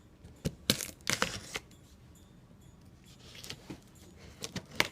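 Cardboard box and packaging being handled: a few sharp knocks and crackles, a cluster about a second in and another just before the end, with a faint rustle between.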